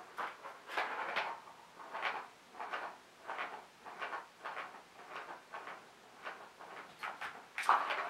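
Ball rolling around the plastic track of a Catit Senses circuit cat toy, batted along by a kitten: a rolling rush that swells and fades over and over, loudest near the end.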